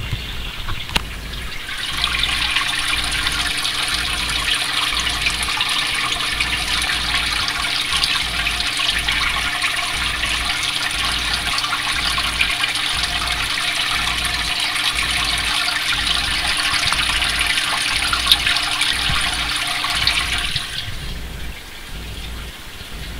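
Loud, steady rushing and splashing of water in a goldfish aquarium, starting about two seconds in and stopping fairly suddenly near the end, with a faint low hum under it.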